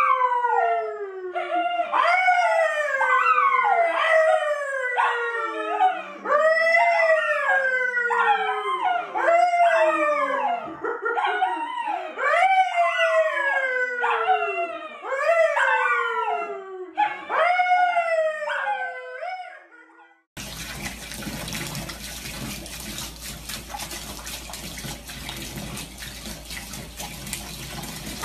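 A brown poodle howling along with a man, in long calls that fall in pitch, one about every second and a half for about twenty seconds. Then, after a short gap, a tap runs steadily into a bathtub of water.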